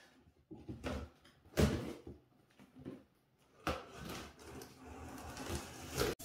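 Cardboard shipping box being opened by hand: packing tape torn and cardboard flaps scraped and rustled, with a few sharp rips and knocks, the loudest about a second and a half in.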